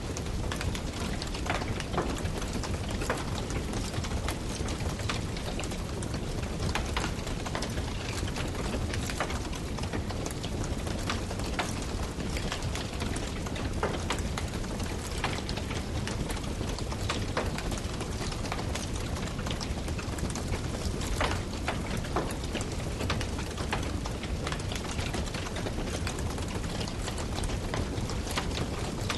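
Firewood burning, with frequent irregular crackles and pops over a steady low rumble.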